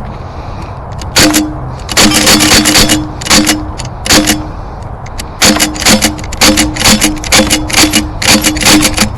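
Air guns firing in rapid bursts of sharp cracks, a short burst about a second in, then a longer string of bursts, and an almost unbroken run from about halfway through.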